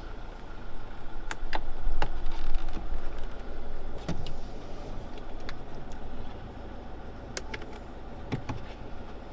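Sharp clicks and knocks of plastic trim, clips and tools at a Fiat Ducato's steering wheel hub and column as the wheel and airbag are taken apart, over a steady low rumble. The knocks come thickest and loudest in the first three seconds, then space out.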